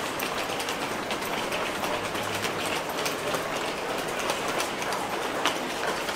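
Busy railway station ambience: a steady hubbub of people passing, with many small clicks from footsteps and rolling suitcases.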